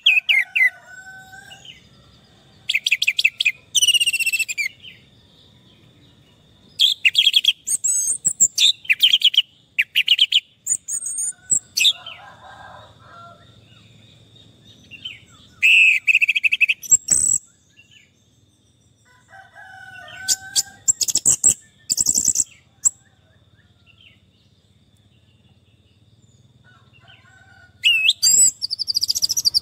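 Orange-headed thrush (anis merah) singing: about seven bursts of fast, high whistled and trilled phrases, each a second or two long, with pauses of a few seconds between. A faint steady high tone runs underneath.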